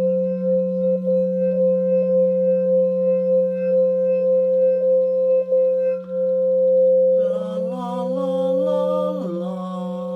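A sustained humming drone of two steady tones, a low one and a higher, stronger one, with a slight pulsing. About seven seconds in, a further hum joins whose pitch steps and wavers.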